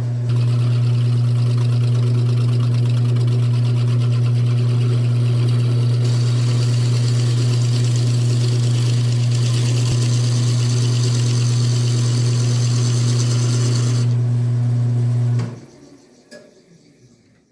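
Grizzly wood lathe running with a steady motor hum while a turning tool cuts into a spinning piece of spotted maple, the cutting hiss growing harsher through the middle. The sound cuts off abruptly about two seconds before the end.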